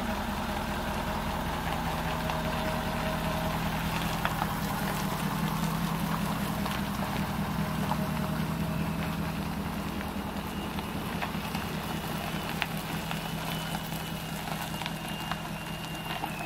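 Ford Super Duty pickup truck's engine running steadily as it pulls away towing a travel trailer. A faint high, steady tone joins in near the end.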